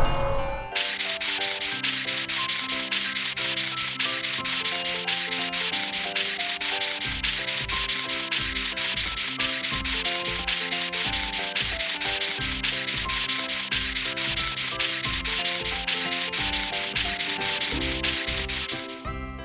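A rapid, steady scrubbing sound effect of a car-wash cloth brush rubbing over a motorcycle. It starts about a second in and stops just before the end, with a simple music tune underneath.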